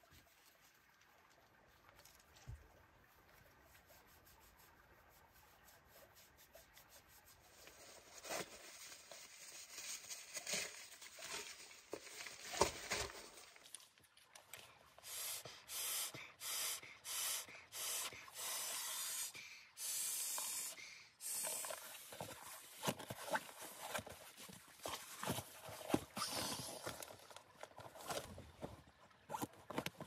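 Face being washed by hand at close range: rubbing and scrubbing strokes, faint at first, growing into a regular run of hissy strokes about one a second from the middle on.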